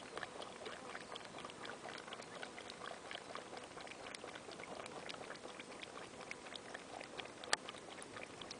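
Kangaroo lapping water from a puddle: faint, irregular small wet clicks, with one sharper click about seven and a half seconds in.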